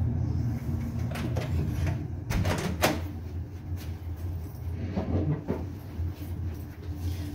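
Kitchen handling sounds: a few sharp knocks and clacks of things being moved and set down, the loudest about three seconds in, over a steady low hum.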